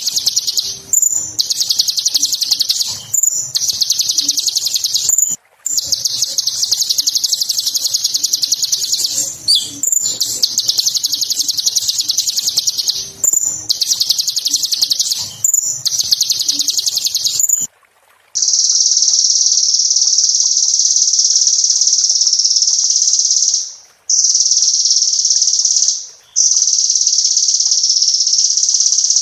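Sunbird (Kolibri Ninja) singing: long phrases of rapid, high-pitched chattering trills broken by short pauses. After a cut about two-thirds of the way in, the trills run on in longer, steadier stretches.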